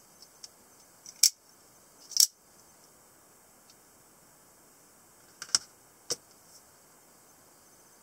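Small out-the-front automatic knife worked by its thumb slide, its spring-driven blade snapping out and back into the handle: two loud sharp clicks about a second apart, then two more about half a second apart, with faint ticks of the slide between.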